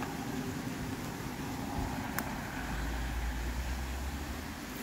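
A motor vehicle going past: a low rumble that swells in the middle and fades again, with a single sharp click a little after two seconds in.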